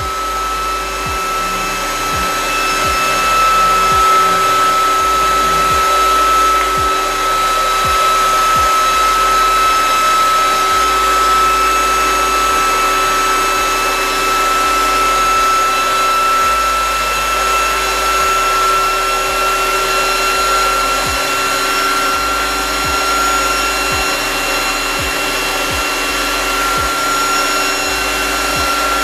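ZVS induction heater running with a crucible glowing inside its work coil: a steady whine over a continuous hiss, the whine edging slightly higher in pitch.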